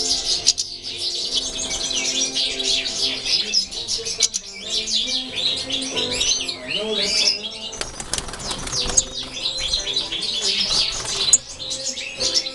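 A roomful of caged European goldfinches twittering and chirping, many calls overlapping without a break, with some wing flutters among them.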